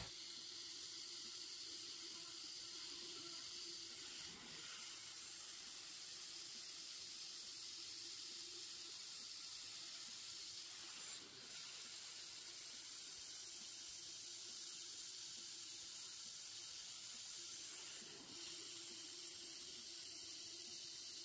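Steady spray hiss from a mist-coolant nozzle playing on the cutter of a CNC router as it chamfers holes in a 6061 aluminium plate, with a faint steady hum from the spindle underneath. The hiss briefly drops three times, about seven seconds apart.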